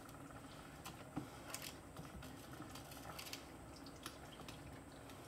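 Risotto heating in a small saucepan on a stovetop, giving faint, irregular small pops and clicks.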